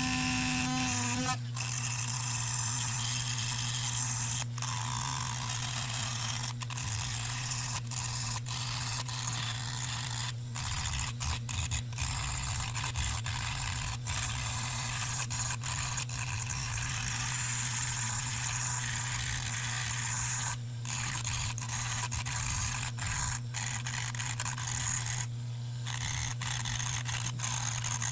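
Dremel rotary tool with a grinding wheel grinding rust spots off steel needle nose pliers: a steady scraping hiss over the motor's hum, broken by many brief gaps as the wheel is lifted off and set back on. A pitched motor whine stops about a second in as grinding begins.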